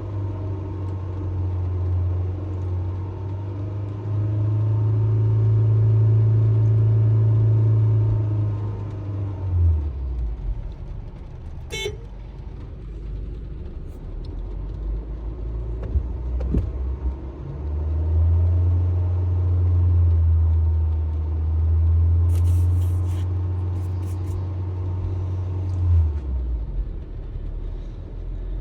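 Honda HR-V's four-cylinder engine held at steady raised revs, dropping back to idle about ten seconds in, then revved up again and held for about eight seconds before falling back to idle near the end. A single sharp click sounds about twelve seconds in.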